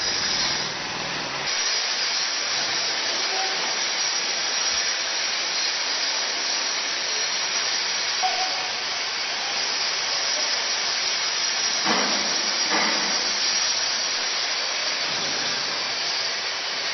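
Steady loud hiss of handheld tools working a concrete ceiling and raising dust. Two short knocks about twelve seconds in.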